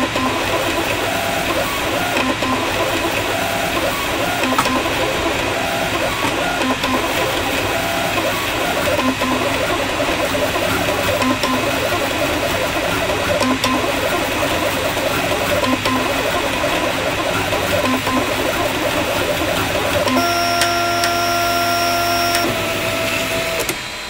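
3D printer's stepper motors whining and buzzing in quickly shifting tones as the print head moves through a print. Near the end it holds a few steady tones for about two seconds, then a single tone, then fades out.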